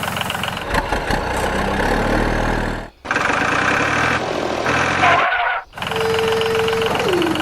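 Engine running, cut off abruptly twice, about three and five and a half seconds in. Near the end a steady tone holds briefly and then slides down.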